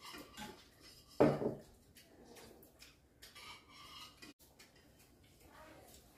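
Chopsticks and spoons clinking and scraping against ceramic bowls during a meal, with scattered light taps and one louder short sound about a second in.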